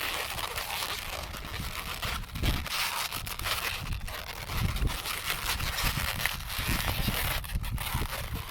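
Latex modelling balloons being twisted and handled: irregular rubbing, crinkling and soft knocks over a steady hiss.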